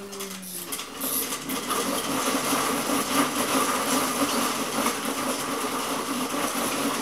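Slat-belt dog treadmill running fast under a galloping dog: a steady mechanical rattle of the wooden slats over their rollers, mixed with the dog's footfalls. It gets louder about a second in and then holds steady.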